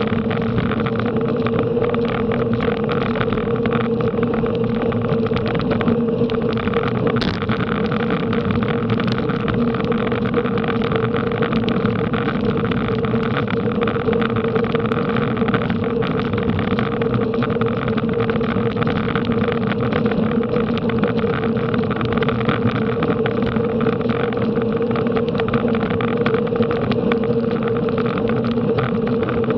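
Steady rush of wind and road noise from a bicycle ridden at race speed, with a constant hum underneath.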